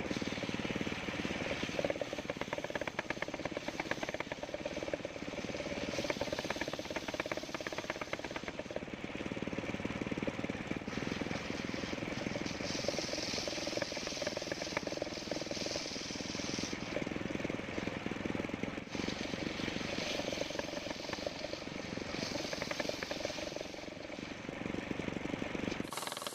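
Homemade circular sawmill running steadily while sawing old coconut wood, a dense rapid pulsing machine sound. The sound changes abruptly near the end.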